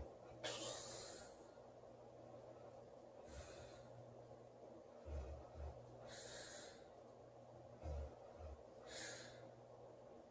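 A sleeping woman breathing heavily and lightly snoring: four hissing breaths about three seconds apart, with short low snore pulses in pairs between the later breaths. Quiet overall.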